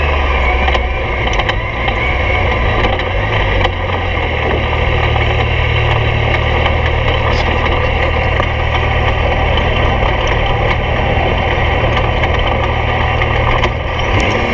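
Yamaha YXZ1000R three-cylinder engine running steadily as the side-by-side drives over a rough dirt trail, with scattered clicks and knocks from gravel and the bodywork.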